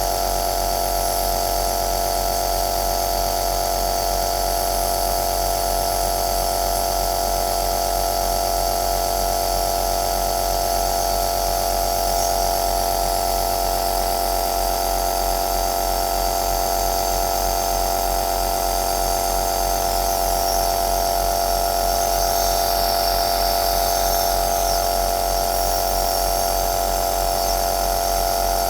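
Compressor nebulizer running steadily: a constant motor hum of several steady tones under an even hiss of air.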